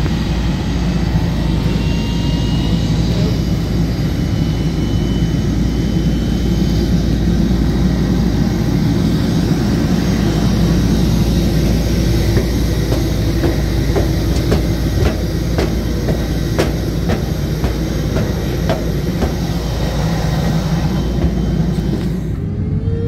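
Footsteps clanking on the metal treads of an aircraft's mobile airstairs, about two steps a second, over a steady loud low rumble of apron noise. The rumble turns duller near the end.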